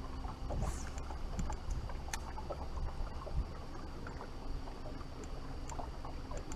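Steady low rumble of wind and water around a bass boat on the river, with a faint steady hum and scattered light clicks of a casting reel being worked.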